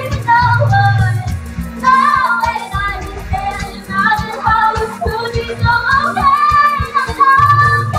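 A young woman singing live into a microphone over a karaoke backing track, her voice holding and bending through sustained sung notes.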